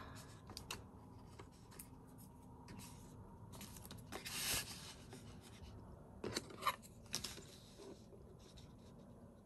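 Faint handling of heavy cardstock: the sheets slide and rustle under the hands, with a louder swish about halfway through. A few light taps follow as a clear plastic ruler is set down on the card.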